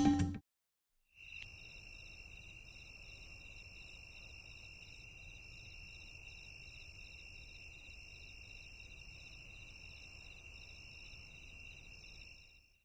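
Faint, steady chorus of crickets and other night insects trilling, with several high-pitched trills layered together, one pulsing fast and one coming and going. It starts about a second in.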